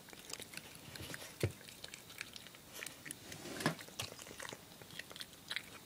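Japanese badger chewing up close: irregular small crunching clicks, two of them louder.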